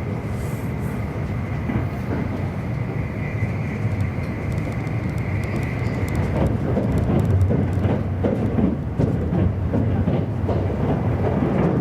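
E259 series Narita Express electric train running at speed, heard from on board: a steady rumble of wheels on the track. A high steady whine runs through the first half, and from about halfway in there is more irregular clatter and knocking from the rails.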